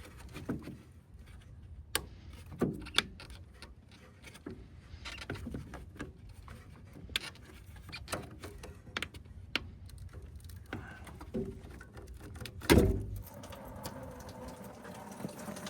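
Scattered clicks and knocks of hand tools working at a pressurized engine cooling system, with one loud knock near the end, followed by a steady rushing that builds as the trapped pressure and coolant start to escape.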